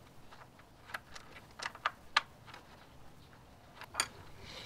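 A scattered series of light clicks and taps as small metal parts of the engine's oil feed line to the VANOS unit are handled and fitted; the sharpest come about two and four seconds in.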